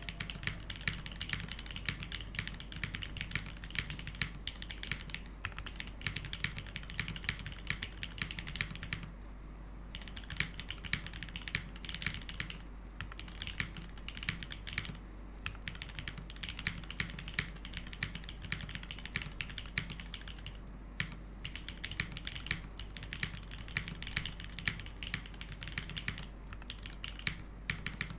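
Typing on a Kalam Unikorn custom mechanical keyboard with modded Retool Black switches and GMK Striker keycaps: fast, continuous keystrokes in a typing sound test, broken by a few brief pauses.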